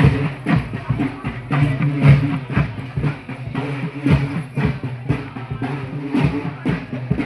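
Loud music with drumming: a steady beat of several drum strokes a second over sustained low notes.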